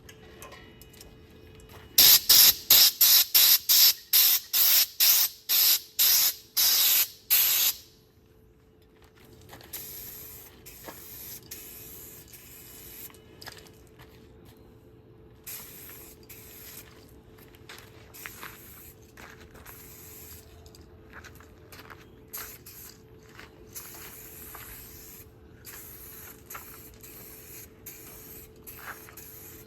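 Aerosol can of two-part clear coat spraying in a quick run of short hissing bursts, about two or three a second, starting about two seconds in and lasting some six seconds. Fainter, intermittent spray hisses follow.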